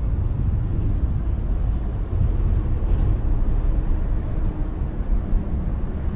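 Wind buffeting a GoPro's microphone: a loud, uneven low rumble.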